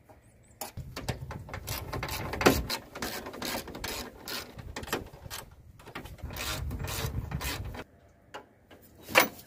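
Hand socket ratchet clicking in quick runs as the radiator support bar bolts are run in loosely; the clicking stops about eight seconds in, and one sharp click follows near the end.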